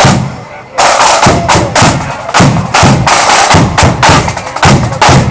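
Marching band's side drums played loud and close, with a deep bass drum beat under them. A strong hit opens it, there is a brief lull, and just under a second in the drumming starts again in an even marching rhythm.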